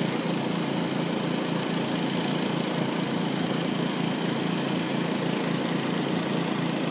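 Small gasoline engine of a sewer jetter running steadily with an even pulsing throb, under a constant rushing hiss as backed-up sewage pours from the opened cleanout pipe now that the clog has broken.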